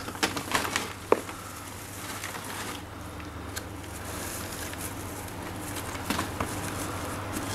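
Shredded paper packing filler rustling and crackling as it is pulled out of a cardboard box by hand, with sharp ticks mostly in the first second, over a faint steady low hum.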